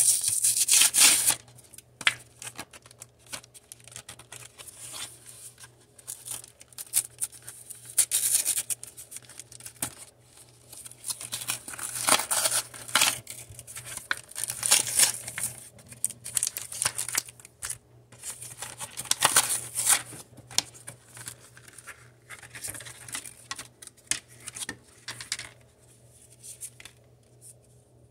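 Pokémon card packaging being opened by hand: plastic blister pack and foil booster wrapper tearing and crinkling in short bursts every few seconds, with cards and cardboard handled in between.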